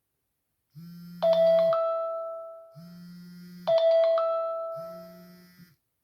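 iPhone 4 ringing for an incoming call: two bell-like chimes about two and a half seconds apart, each dying away, with a low buzz in three pulses of about a second each, the phone's vibration alternating with the ringtone.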